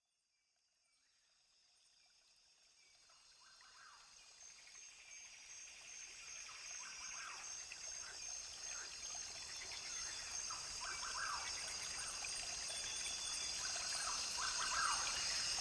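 Rainforest ambience recording with a brook, fading in a few seconds in: running water, a steady high insect buzz and repeated bird calls, growing steadily louder.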